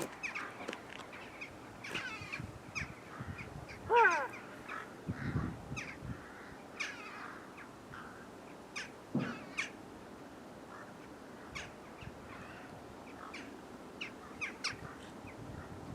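Birds calling outdoors: one loud falling caw about four seconds in, with scattered short chirps from smaller birds.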